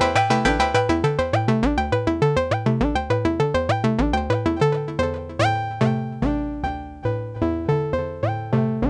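Electronic music: a synthesizer sequence of quick, evenly repeated plucked notes over a stepping bass line. About five seconds in, the pattern thins to slower notes, each sliding up briefly into pitch.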